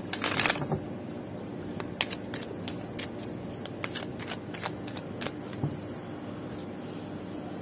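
Oracle card deck shuffled by hand: a quick run of flicking cards at the start, then scattered single card clicks as the shuffling goes on.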